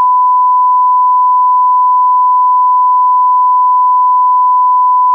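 A loud, steady electronic beep: one pure high tone held unbroken at a single pitch.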